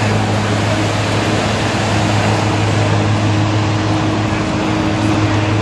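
Police water cannon trucks' engines running with a steady low hum, under an even rushing noise.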